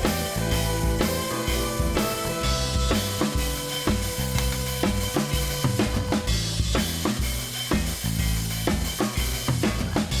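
Background music with a drum kit playing a steady beat over a bass line and held notes.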